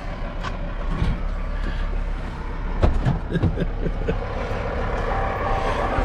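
Steady low rumble of an idling truck engine, with scattered knocks and clicks as the camera is handled, and a few short faint voice sounds about three seconds in.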